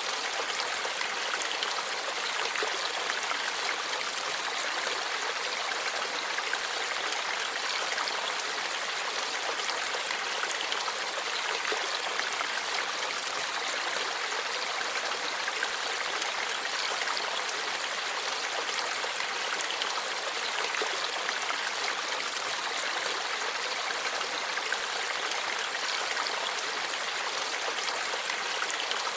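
Forest stream flowing and babbling over rocks, a steady rush of water with a bright, hissing top.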